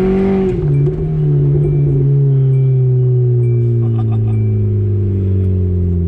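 Car engine running while driving: the engine note peaks at the start, drops suddenly under a second in, then holds steady and slowly falls.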